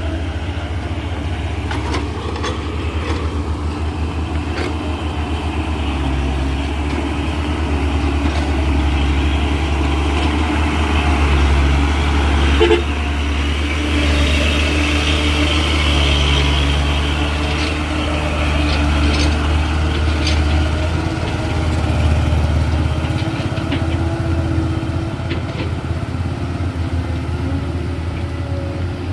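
Heavy diesel engines running steadily with a deep, pulsing low rumble and scattered clanks, one louder knock about halfway through.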